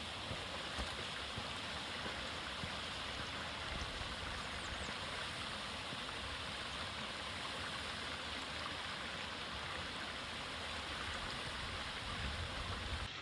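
A stream running: a steady rush of flowing water.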